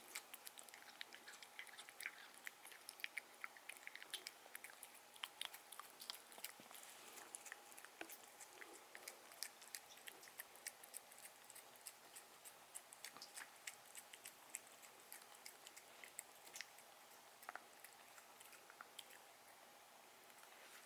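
Faint, irregular small clicks and crunches of chewing: a pet cat eating.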